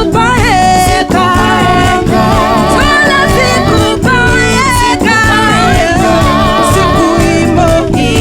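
Band music with several voices singing together over steady bass notes and a beat about once a second.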